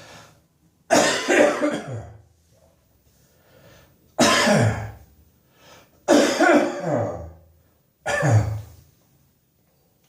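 A person's chesty morning cough: four heavy coughing bouts about two seconds apart, each lasting about a second and dropping in pitch as it goes.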